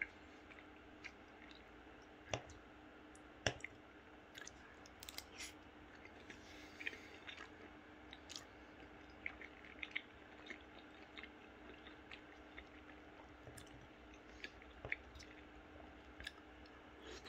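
Close-miked chewing of soft food, Greek yoghurt and pasta, with wet mouth sounds and scattered small clicks; one louder click comes about three and a half seconds in.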